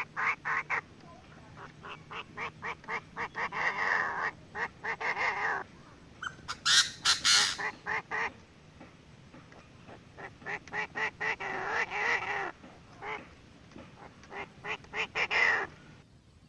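Chinese francolin calls, male and female, played as a trapping lure: bursts of rapid, harsh repeated notes with short pauses between them. One louder, shriller burst comes about seven seconds in, and the calling stops just before the end.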